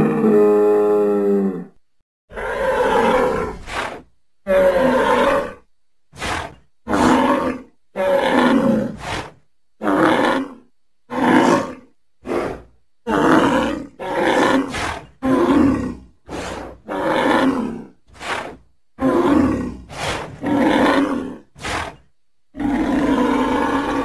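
Bison calling: one long, pitched bellow at the start, then a run of about twenty short, rough grunting bellows with brief silent gaps between them.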